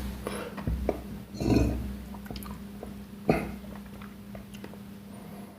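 Close-miked eating sounds: chewing and mouth noises with scattered sharp clicks, a louder burst about one and a half seconds in and a sharp click a little after three seconds, growing quieter toward the end.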